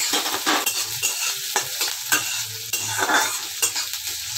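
Chopped onions and dried curry leaves sizzling in hot mustard oil in a metal kadai. A metal spatula stirs them, scraping against the pan about every half second.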